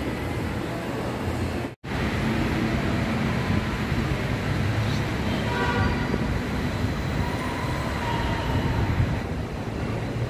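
Steady low rumble of a light-rail train at an elevated station platform. It is broken by a brief silent gap about two seconds in, and a faint whine from the train comes and goes in the middle.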